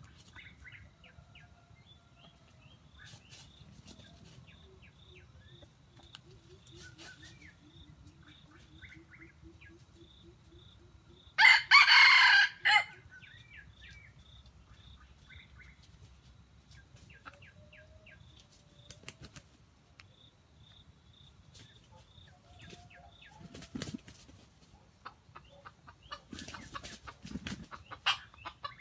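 A jungle fowl rooster crows once, loud and close, about twelve seconds in. Softer clucks and calls from other fowl run through the rest, with a few short scuffling noises near the end.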